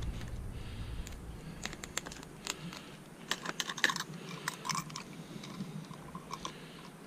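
Irregular light clicks and taps of tools and parts being handled, several in quick clusters about halfway through.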